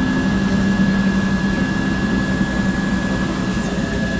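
TSM automatic cloth cutting machine running: a steady mechanical hum with a thin high-pitched whine over it.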